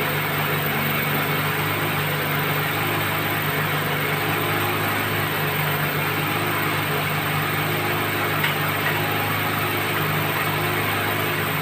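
Water-well drilling rig's engine running steadily, a constant hum with a broad noisy wash over it.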